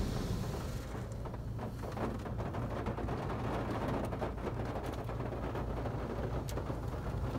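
Touchless car wash gantry running alongside the car, heard muffled from inside the cabin: a low steady hum with faint water spatter on the body and glass and a few light ticks.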